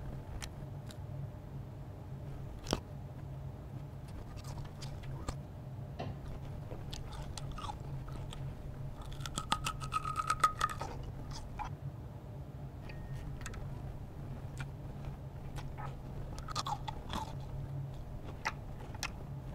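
Loud open-mouthed chewing and crunching of food, amplified through a handheld megaphone held to the mouth. Irregular crackly crunches run over a steady low hum and grow loudest about halfway through, where a brief high whine sounds.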